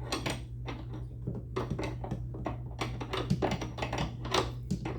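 An irregular run of small metallic clicks and taps, about three a second, from hand tools and hardware being worked while a wrench is fitted to the nut of a kill switch.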